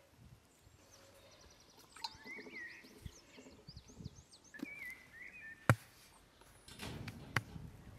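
Small birds chirping and trilling in the background, with a single sharp knock a little past halfway and a rustle with a second knock soon after, from someone leaning into a clay tandoor oven.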